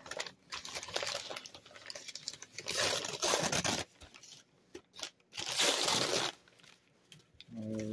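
A white paper Dunkin' Donuts bag crumpled and rustled by hand, crinkling in three bursts with short pauses between.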